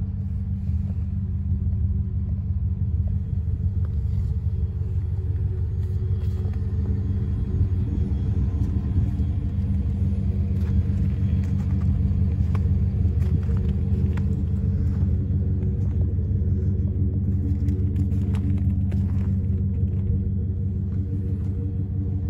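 Pickup truck engine idling with a steady low rumble, unchanged throughout.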